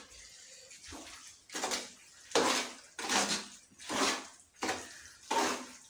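A spoon or ladle stirring thick, wet chicken curry masala in a cooking pot. It makes a row of short, squelching scrapes, a little faster than one a second.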